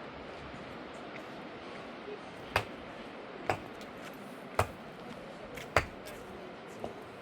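Four sharp knocks, about a second apart, over a steady background hiss, with a fainter fifth knock near the end.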